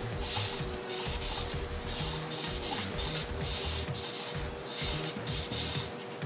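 A rag wiping the inside of a bicycle rim with alcohol, cleaning the rim bed before it is taped for tubeless. The wiping strokes come about two a second, each a short hiss.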